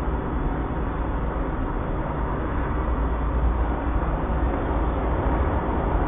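Steady rumbling noise with a hiss over it, heaviest in the deep bass and unchanging throughout.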